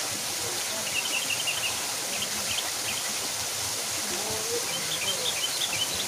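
Steady rush of a small waterfall splashing into a pool, with a bird calling in quick runs of short high chirps about a second in, again around two to three seconds in, and near the end.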